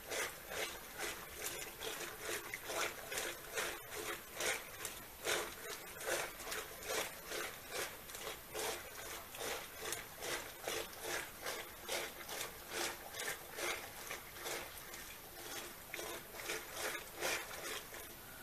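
Wooden churning stick (madani) spun back and forth by a pulled rope in a pot of whitish curd, churning it with a rhythmic sloshing swish at about two to three strokes a second.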